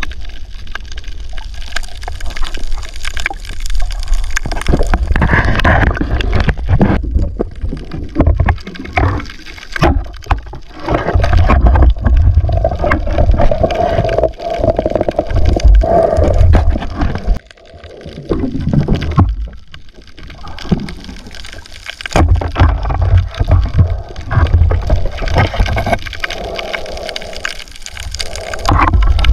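Water sloshing and gurgling around an underwater camera held by a snorkelling spearfisher, heard muffled with a deep, uneven rumble and a few sharp knocks.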